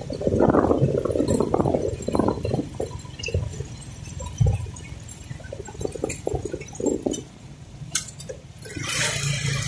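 Irregular rumbling and rattling from a moving motorcycle, heard through the recording phone's microphone, with the engine itself faint. Near the end the engine and road noise rise to a steady drone.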